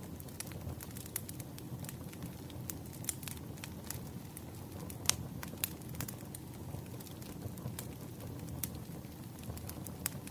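Campfire burning: a steady low rumble of flames with irregular sharp crackles and pops of burning wood, one louder pop about halfway through.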